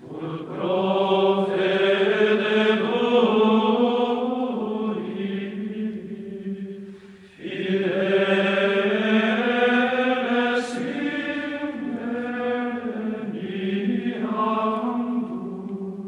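Background music of slow vocal chanting: long held, slowly gliding notes in two phrases, with a short break about seven seconds in and a fade near the end.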